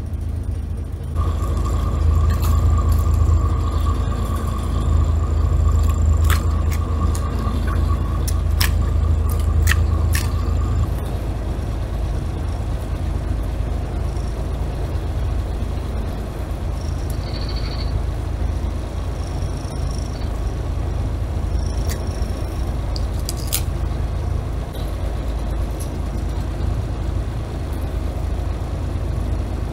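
Fishing boat's engine running with a steady low rumble. A higher whine sounds over it for about the first ten seconds, and there are a few sharp knocks.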